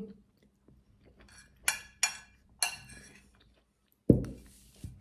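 Metal spoon clinking against a ceramic plate three times in quick succession, each strike ringing briefly, followed about four seconds in by a dull thump.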